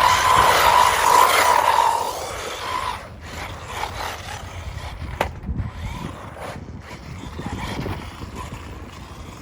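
WLtoys XK Match 1/10 scale RC car driving, its electric motor whining over the rush of its tyres on the ground. The sound is loud for about two seconds, then drops away to a fainter rumble with one sharp click about five seconds in.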